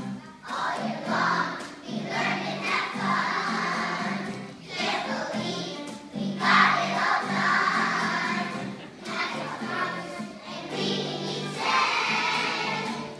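Young children's choir singing a song in phrases, with violin accompaniment.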